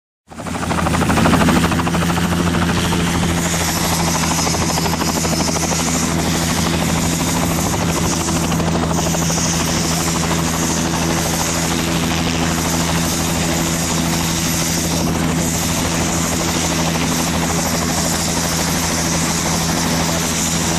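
Helicopter running close by: a loud, steady drone with a low hum that cuts in abruptly at the start and holds unchanged.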